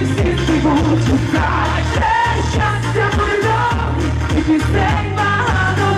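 A woman singing a pop song into a microphone over amplified backing music with a steady, repeating bass line.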